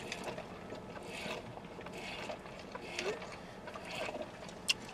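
A drink being sipped through a straw from a large paper cup: soft sucking and swallowing about once a second, mixed with chewing. A short click comes near the end.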